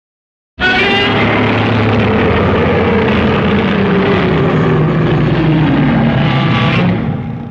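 Shin Godzilla roar sound effect: one loud, drawn-out, grating cry with a slowly falling pitch, starting abruptly under a second in and fading out near the end.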